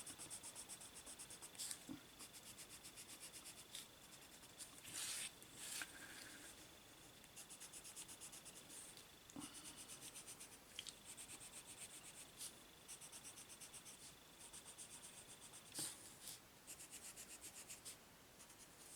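Watercolour pencil colouring on paper: faint, quick back-and-forth scribbling strokes, several a second, in short runs with brief pauses and an occasional single louder scrape.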